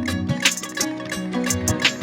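Instrumental background music: plucked-string melody over a bass line, with a regular beat.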